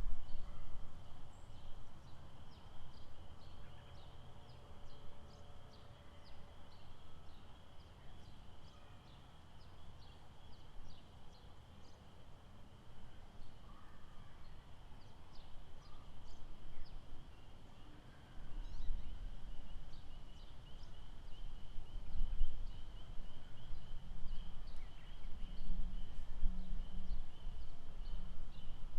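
Outdoor lakeside wildlife chorus: a steady high trill with many short, high chirps repeating throughout. Underneath is a low rumble that grows louder about two-thirds of the way in.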